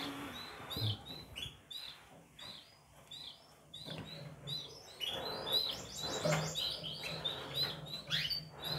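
Young canaries cheeping: short high chirps repeating about twice a second, with a few longer falling and rising notes in the second half. Soft puffs of breath come in the second half as the handled chick's belly feathers are blown apart to check its sex.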